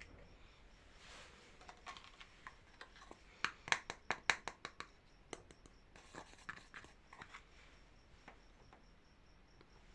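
Hands handling packaging during an unboxing: scattered scratches and small clicks, with a quick run of about a dozen sharp clicks a few seconds in.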